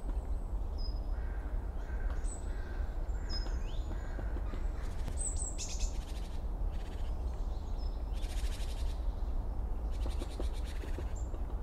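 Late-summer forest ambience: crows cawing harshly in three bouts in the second half, with small birds giving short high chirps throughout. A steady low rumble runs underneath.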